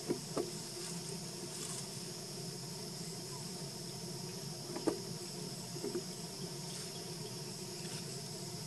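Steady high buzzing of an insect chorus in forest, with a few faint short clicks near the start and around the middle.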